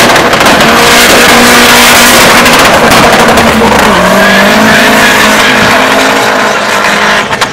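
Car engine at full throttle as a hatchback accelerates hard down a drag strip, loud throughout, with the engine pitch dropping at a gear change about four seconds in and then climbing again.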